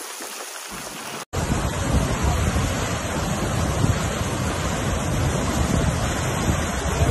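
A soft steady hiss, then after a sudden break a little over a second in, the loud rushing of a muddy flash-flood torrent surging down a wadi, with wind buffeting the microphone and a deep rumble.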